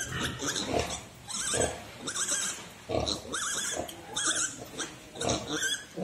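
Suckling piglets squealing again and again in high, wavering cries, over the low grunts of the sow nursing them.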